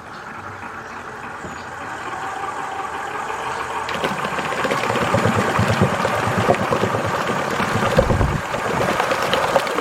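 A motor running steadily and growing louder over the first few seconds, with a steady whine and a rapid, rough pulsing underneath.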